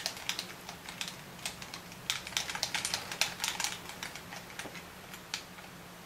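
Game controller buttons clicking rapidly in irregular bursts, busiest a couple of seconds in and thinning out near the end.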